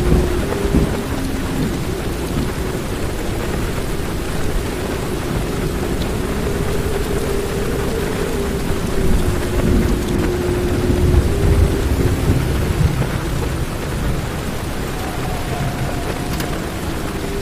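Heavy rain drumming on a car's roof and windscreen, heard from inside the cabin, with a low rumble of thunder that swells about nine to twelve seconds in.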